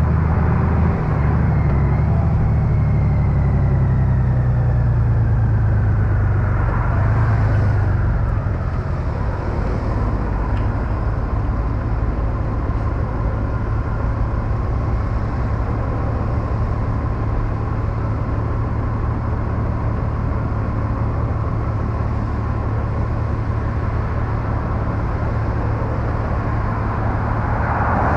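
Honda Gold Wing's flat-six engine running as the motorcycle slows, with a whine that falls in pitch. About eight seconds in it settles to a steady idle while the bike stands in traffic.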